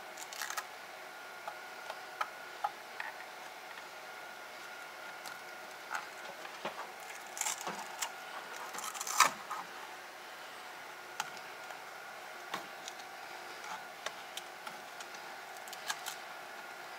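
Hands handling small parts in a wall-mounted network enclosure: scattered clicks, taps and short rustles, with one louder click about nine seconds in, over a faint steady high tone.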